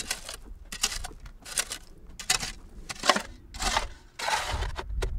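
Long-handled shovel scraping and cutting into soil as a grave is dug by hand: about six gritty scrapes, one roughly every two-thirds of a second. Near the end a low rumble comes in.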